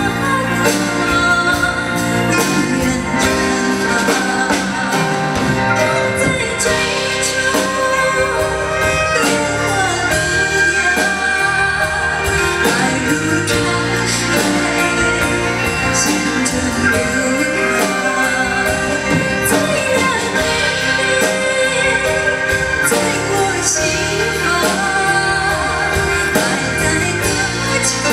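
A woman singing a pop ballad live into a handheld microphone over steady instrumental accompaniment.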